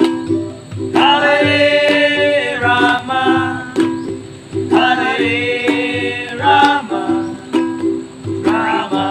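Kirtan devotional chanting: sung mantra phrases in long, gliding lines over a steadily strummed plucked-string accompaniment with a light regular percussion beat. The singing comes in three phrases, each a couple of seconds long, with only the strumming between them.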